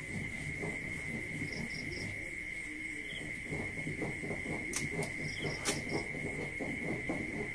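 Crickets keep up a steady high-pitched trill. Under it come a run of soft rasping strokes as a hilsa fish is scraped and cut on a boti blade, and two sharp clicks about five seconds in.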